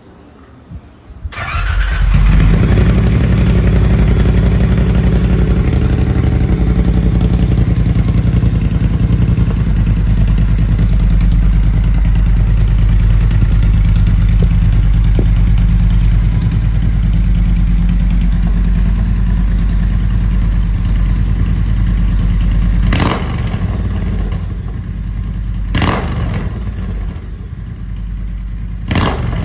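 Triumph Bonneville T120's 1200 cc parallel-twin engine started about a second and a half in, then idling loudly and steadily through aftermarket 3.5-inch straight-cut exhaust tips with internal baffles and the dB killers removed. After about twenty seconds the idle gets quieter, and three short sharp sounds come near the end.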